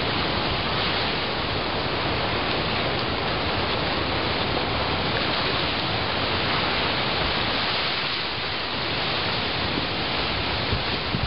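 Ocean waves breaking and washing in over a pebble beach among driftwood logs: a steady rushing surf noise.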